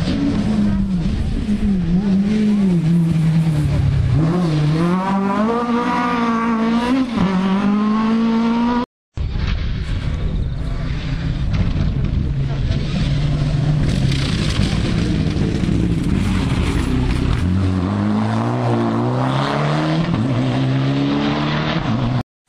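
Rally car engines revving hard, pitch rising and dropping back repeatedly through gear changes and lifts as the cars run the stage. The sound breaks off briefly about nine seconds in and a second car follows, climbing through the gears near the end.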